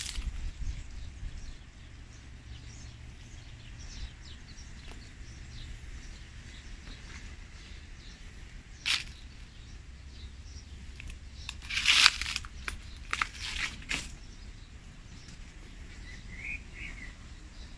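Wind buffeting the microphone in low gusts, with a few sharp crunching, crackling sounds, the loudest cluster about twelve seconds in.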